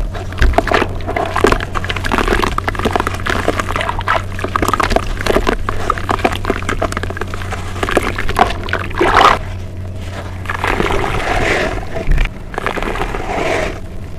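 Close-miked chewing of a mouthful of moist brown dirt paste: wet, squishy crackling with small crunches throughout. A steady low hum sits underneath.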